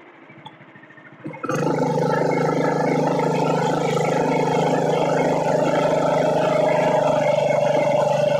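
Small motorized-bike engine running under way. It comes in loud and suddenly about a second and a half in, after a quieter stretch, and holds a steady pitched drone that creeps slightly higher near the end.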